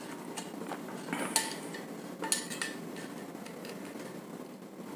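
Screwdriver working the screws on the sheet-metal back cover of an exhaust fan motor: a few light metallic clinks with a short ring, about a second apart, as the cover screws are loosened.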